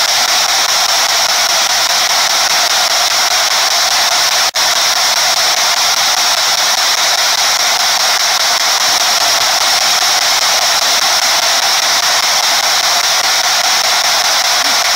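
P-SB7 spirit box sweeping the radio band, giving a loud, steady hiss of radio static, with a brief dropout about four and a half seconds in.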